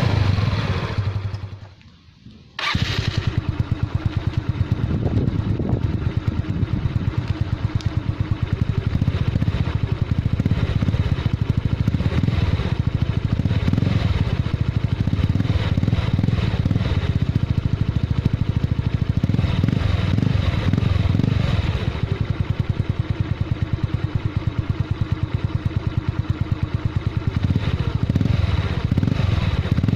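Yamaha Mio Sporty scooter's single-cylinder four-stroke engine running through an Exos X-6 aftermarket muffler, a steady, evenly pulsing exhaust note with a few mild swells in revs. The sound drops away about two seconds in and returns abruptly.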